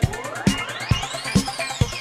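Electronic dance music with a steady kick drum about twice a second and a synth sweep that rises in pitch and then falls.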